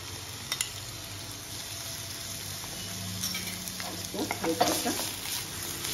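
Sliced onions and green chillies sizzling gently in oil in a non-stick frying pan. A couple of sharp clicks of a metal spoon on the pan come about half a second in as garlic paste goes in, then a wooden spatula stirs and scrapes through the pan.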